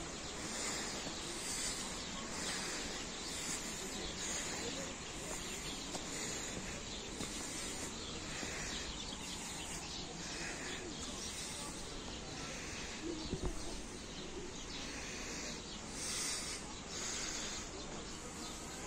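Outdoor park ambience: a steady background of distant noise with birds chirping. A single brief knock comes about 13 seconds in.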